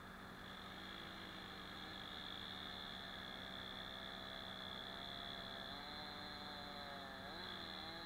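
Faint, distant small engine running with a wavering pitch that comes in about three seconds in and dips and rises near the end, over a steady hum and hiss.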